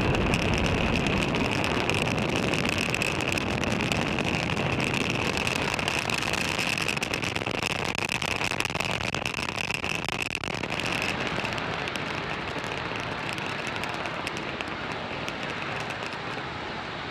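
Falcon 9 first stage's nine Merlin engines during ascent: a steady noisy rumble that slowly fades as the rocket climbs away.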